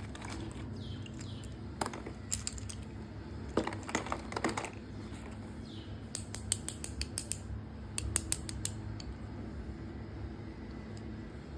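Clusters of sharp, light clicks and taps from small hard objects being handled and knocked together, with a fast run of clicks about six seconds in.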